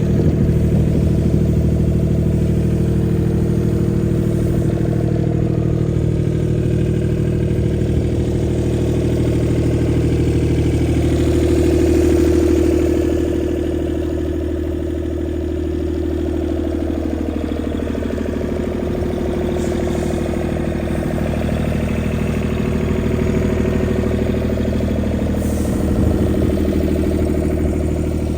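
Skid steer's engine running steadily. Its pitch swells briefly about twelve seconds in, then settles a little lower and quieter.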